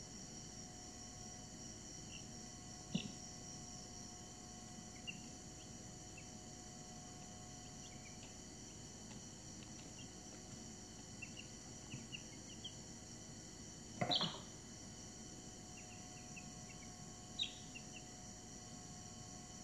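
Week-old Brahman chicks peeping softly and sporadically, with a louder cheep once early on... near the start, once about two-thirds through and once near the end, over a steady faint high-pitched whine.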